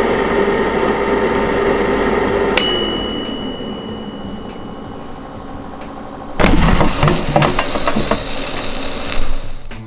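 Midea air fryer's fan running, then a click and a single ring of its mechanical dial-timer bell about two and a half seconds in, with the fan winding down after it: the cooking cycle has ended. A few seconds later a loud rushing, rattling noise as the basket is pulled out.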